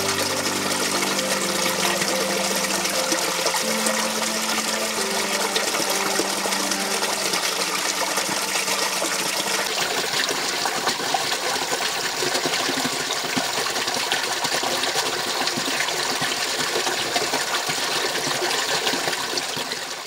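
Small freshwater spring pouring over a rock into a shallow pool: a steady splashing rush of falling water. Faint held notes of background music run under it and fade out about halfway.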